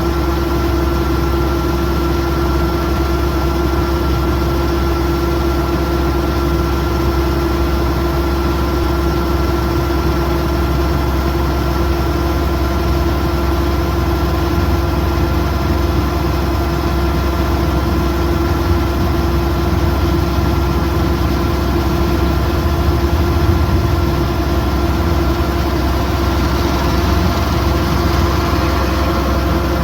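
Kubota DC108X combine harvester's diesel engine and machinery running steadily at work, a constant hum with a steady whine over it.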